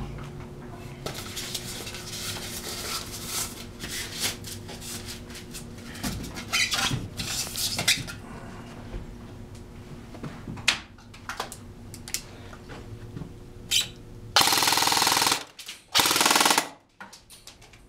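Custom M4 airsoft rifle firing two rapid-fire bursts, each about a second long, near the end, its BBs striking a thin mesh face mask on a styrofoam mannequin head at point blank. Before that, scattered knocks and rustles as the mask is handled and fitted onto the head.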